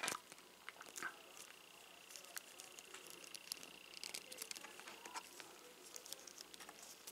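Small clicks and handling noises of a hard plastic action figure and its oxygen-tank backpack being fitted onto the figure's back, with a sharper click at the very start and another about a second in.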